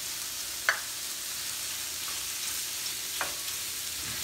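Shrimp sizzling in a hot stainless steel skillet as onion is added and stirred in with a spatula, a steady hiss with two sharp clicks of the spatula against the pan, the first under a second in and the second about three seconds in.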